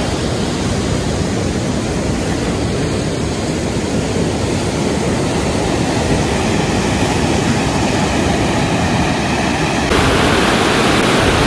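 Steady rushing noise of Lake Superior surf breaking on the beach, mixed with wind on the microphone. It jumps louder and brighter about ten seconds in.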